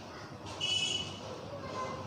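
Steady street background noise, with one short high-pitched tone about half a second in, lasting about half a second.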